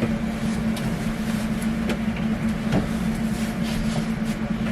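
Steady hum of a running appliance motor, with a few light taps and rustles from clothes being handled.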